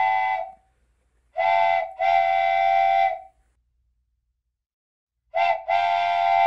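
Model railroad diesel locomotive horn sound, a chord of several notes, blown in separate blasts: a long blast that cuts off about half a second in, then a short blast and a long one, then after about two seconds of silence another short blast and a long one.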